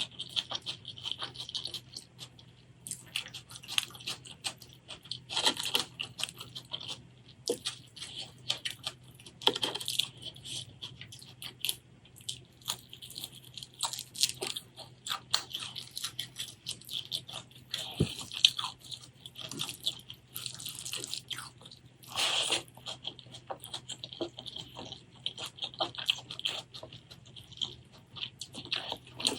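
Close-miked eating: chewing with many short crunches and clicks, coming unevenly all through.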